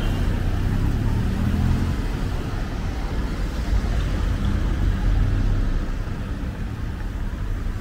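City road traffic: cars, pickup trucks and motorbikes driving past with a steady low engine and tyre rumble that swells as vehicles pass close, about two seconds in and again around five seconds in.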